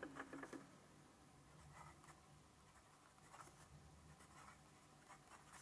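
Faint scratching of a fine-nib Nahvalur Eclipse fountain pen writing on smooth 90 gsm Fabriano Ecoqua paper, in a few short strokes.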